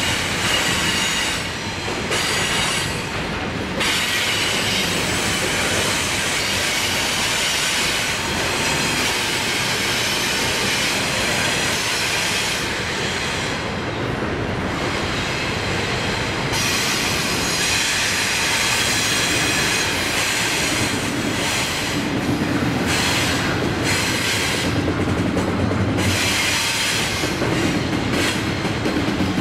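Double-stack intermodal freight train rolling steadily past, with the rumble and clatter of the well cars and a high, wavering squeal from the wheels on the curve.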